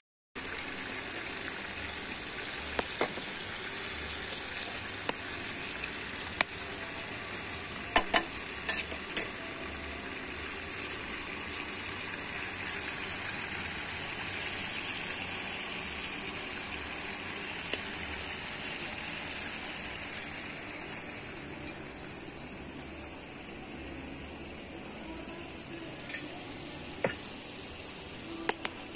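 Chicken cooking in a pot over a wood fire, giving a steady sizzling hiss. A few sharp clicks or knocks cut through it, the loudest a quick cluster about eight to nine seconds in.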